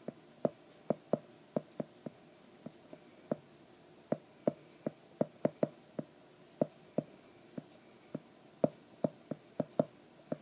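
Stylus tapping on a tablet screen during handwriting: irregular, sharp, light taps about three a second, one at the start and end of each pen stroke.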